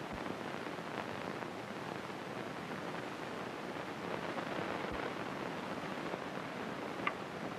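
Steady hiss and faint crackle of an old optical film soundtrack, with a couple of faint clicks about a second in and near the end.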